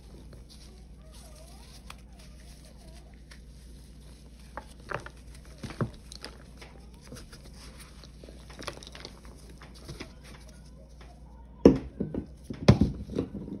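Dried balls of Ajax, Pine-Sol and Palmolive cleanser paste crumbling between gloved fingers, with scattered crisp crunches and crackles as chalky chunks break and fall into loose powder. Near the end come a few louder crunches as a whole ball is pressed down into the powder.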